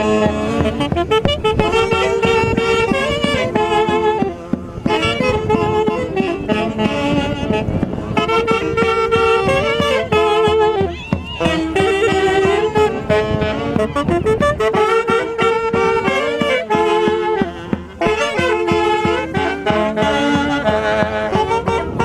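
Santiago music from the central Peruvian Andes, played by a band with saxophones carrying the melody over a steady drumbeat. The drumbeat drops away about two-thirds of the way through while the horns keep playing.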